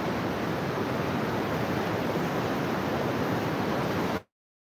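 Steady rush of sea surf breaking on the shore. About four seconds in, the sound cuts off abruptly to dead silence.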